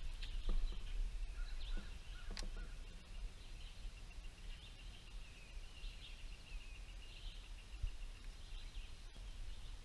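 Birds chirping and trilling faintly over a low rumble, with two light clicks in the first few seconds.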